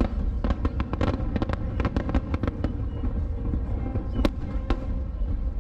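Aerial firework shells bursting in quick succession, a dense run of bangs and crackles over a steady low rumble. Two louder single bangs come a little after four seconds in.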